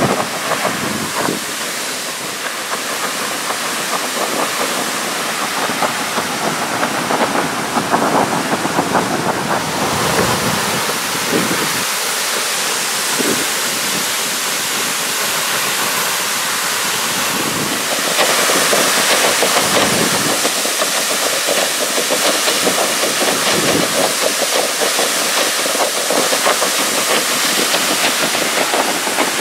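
Water blasting at high pressure from a sheared-off fire hydrant, flowing at an estimated 2000 gallons a minute: a loud, steady rushing, with spray coming down like heavy rain. It gets louder and hissier about two-thirds of the way through.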